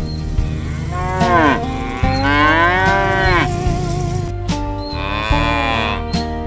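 Cows mooing: three long moos, each rising and then falling in pitch, over background guitar music.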